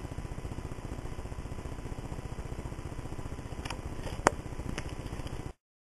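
A steady low mechanical drone with a fast flutter. About four seconds in comes one sharp click, the loudest sound here, with two fainter ticks around it. Near the end the sound stops abruptly.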